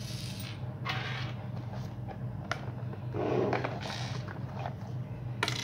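Plastic screwdriver-and-socket set case being picked up and handled on a wooden tabletop: a few short scrapes and rustles, then a sharp click near the end, over a steady low hum.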